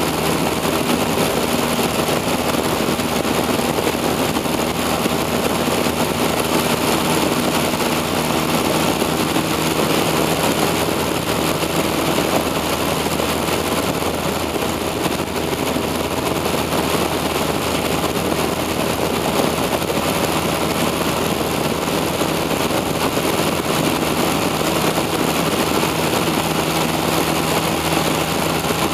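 A light airplane's engine drones steadily in flight, heard inside the cabin along with a constant rush of air noise.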